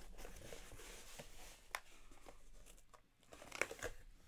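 A cardboard shipping box being opened by hand, its flaps and the boxes inside rustling faintly. There is one sharp tap partway through and a short cluster of knocks near the end.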